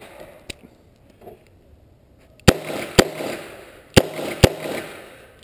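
Smith & Wesson 686 double-action revolver firing in quick pairs: two shots about halfway in, two more a second later, and a fifth right at the end, each followed by a short echo.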